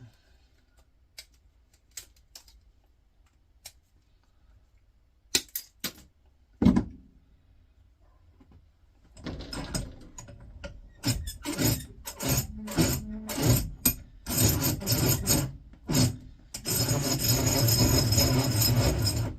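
A few scattered clicks and knocks of tools on the old motor. Then a power tool works on the metal in stops and starts, running without a break for the last few seconds, noisy.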